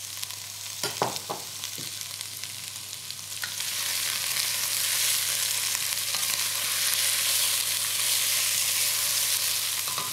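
Chopped vegetables (shallots, fennel, celery, red pepper and fresh tomatoes) sizzling in hot oil in a heavy-bottomed pot while a spoon stirs them, as they sweat over a medium heat. There are a couple of light knocks about a second in, and the sizzle grows louder about four seconds in.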